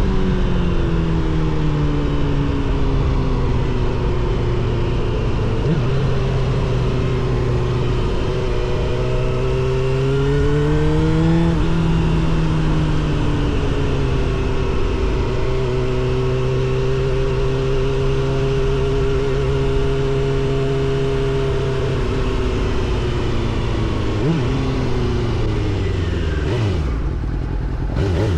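Suzuki GSX-R750 SRAD inline-four motorcycle engine with a Yoshimura R77 exhaust, under way on the road. Its note eases off at first, climbs as the bike accelerates, drops sharply, holds steady at cruise, then falls away as it slows near the end.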